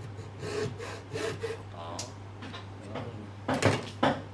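Wooden frame saw cutting a small piece of wood held in a vise: several rasping back-and-forth strokes in the first half. Near the end come a few sharper, louder knocks.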